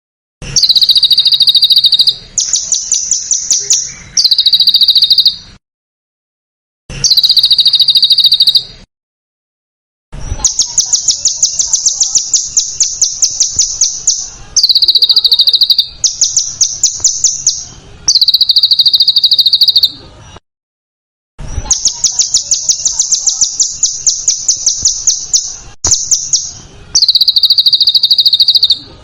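Small songbird song from a masteran recording: runs of rapid, harsh trills, each one to four seconds long with silent breaks between. The trills switch back and forth between a lower and a higher-pitched trill.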